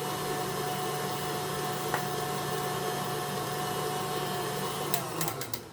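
Electric mixer beating royal icing made of powdered sugar, a steady motor hum. About five seconds in it winds down, with a few clicks, as it is switched off.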